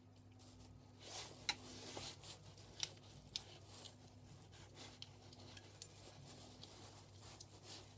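Plug parts being handled and taken apart by hand: a few sharp clicks and clinks of plastic casing and small metal parts among quiet rustling, over a low steady hum.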